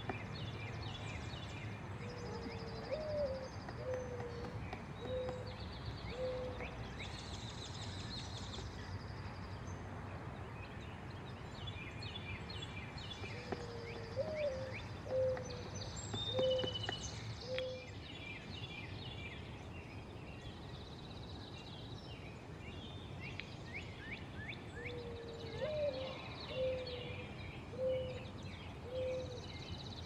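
Birdsong: a low five-note call, the first note rising and the second flicking upward, then three short even notes, repeated three times about every eleven seconds. Many high twittering chirps and trills from smaller birds run underneath.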